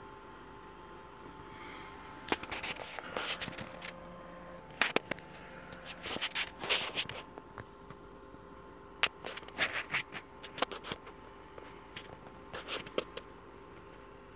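Irregular bursts of rapid clicking and scraping, some groups lasting about a second, over a faint steady hum.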